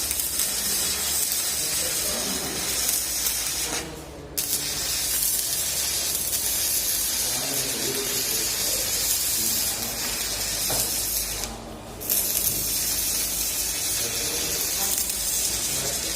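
Stick (shielded metal arc) welding: the electrode's arc crackling and hissing steadily. It breaks off briefly about four seconds in and again near twelve seconds, then strikes again.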